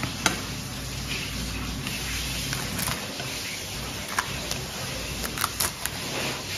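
A knife filleting a red sea bream on a cutting board: cutting strokes along the bones with a few sharp clicks of the blade on the board, several in quick succession near the end, over a steady background hiss.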